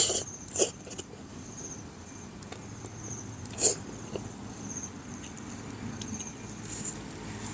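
Mouth sounds of a man eating grouper head by hand: two short, loud smacking sounds about half a second and three and a half seconds in. Insects chirp in short repeated trills behind them.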